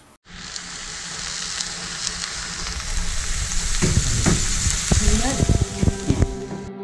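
Potato and cabbage stir-fry sizzling in a hot metal wok, with a spoon knocking and scraping against the pan as it is stirred from about four seconds in. The sizzling cuts off suddenly near the end.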